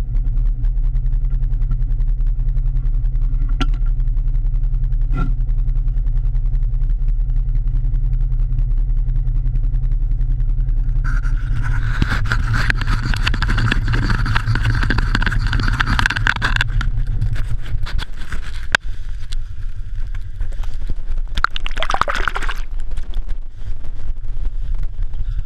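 Polaris RZR XP 1000 side-by-side's parallel-twin engine idling steadily, with a louder rush of wide-spread noise for about five seconds midway; near the end the low engine hum drops away.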